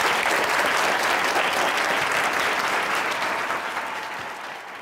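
Audience applauding, a dense steady clapping that fades away near the end.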